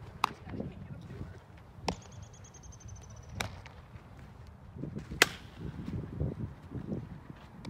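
Four sharp cracks of a bat hitting balls for fielding practice. The second ends in a brief high ringing ping, and the last, about five seconds in, is the loudest.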